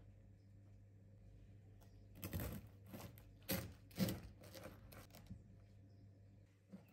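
Kitchen knife cutting through crisp, cheese-topped toasted bread on a wooden board: a run of crunching strokes, the loudest about three and a half to four seconds in.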